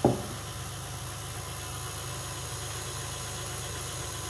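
KitchenAid Classic stand mixer's motor running steadily at a low speed setting, its flat beater turning flour, eggs and olive oil into pasta dough in the steel bowl. A single sharp knock comes right at the start.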